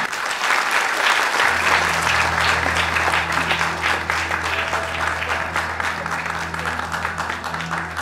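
Audience applauding in a hall, a dense steady clatter of clapping. About a second and a half in, low sustained music notes come in under it.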